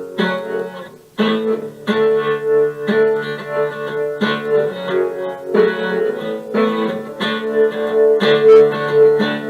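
Guitar music played back through a software multi-effect chain of delay, tremolo, flanger, reverb and stereo panning, so the sound swings between left and right. Chords are struck about once a second, with a held note ringing under them.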